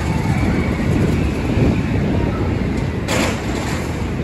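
Amusement-pier ambience: a steady low rumble with faint crowd voices mixed in, and a short hiss about three seconds in.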